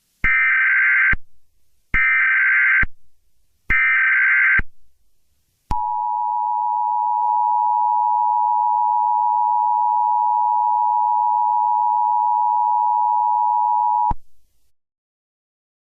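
Emergency Alert System alert tones. Three short warbling data bursts of the SAME header, about a second each, come first. Then the steady two-tone attention signal holds for about eight seconds and cuts off suddenly.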